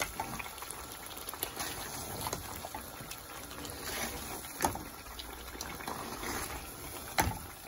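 Fried chicken pieces stirred through a thick yogurt-and-tomato masala in a pot on the heat, the sauce sizzling and squelching as the spoon works. The spoon clicks against the pot now and then, with two sharper knocks, about four and a half seconds in and near the end.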